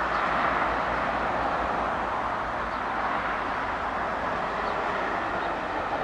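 Steady, even rushing roar of a Pilatus PC-24 business jet's twin turbofans on the runway just after landing, with no distinct tones.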